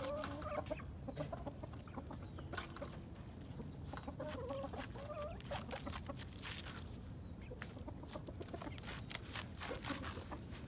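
Domestic chickens clucking in short wavering calls, near the start and again about four seconds in, with scattered sharp scratchy clicks as a rooster scratches in the dirt and litter.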